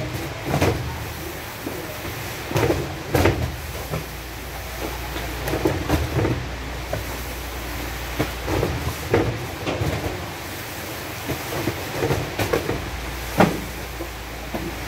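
Irregular knocks and thuds of cartons of cup drinking water being handled and unloaded, over a low steady rumble.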